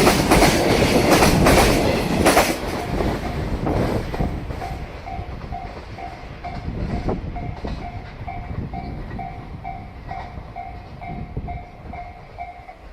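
Wheels of a long freight train's container wagons clacking loudly over rail joints for the first couple of seconds, then fading as the tail of the train moves away. A level-crossing warning bell rings on with a steady, rapid, even beat once the train noise dies down.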